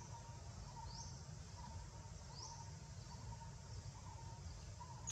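Faint outdoor wildlife ambience: small animals calling in a regular rhythm, one short chirp repeating a little more than once a second and a thin high rising call every second or so, over a low steady rumble. A single sharp click right at the end.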